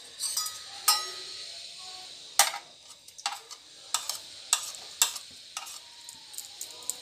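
Butter sizzling in hot oil in a kadhai, with about a dozen sharp, irregular clicks of a spoon tapping and scraping as butter is knocked off it into the pan.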